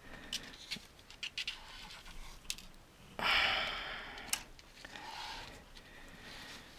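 Handling noise from the opened Rodecaster Pro II: a few light clicks and taps, then a brief scraping rush about three seconds in as the case is slid across the work mat, followed by a sharp click and a softer shuffle.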